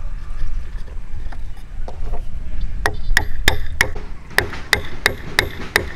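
Steel claw hammer tapping a hardwood beam to knock a mitred dovetail corner joint together. The sharp, even blows begin about three seconds in and come about three a second, each with a faint high ring.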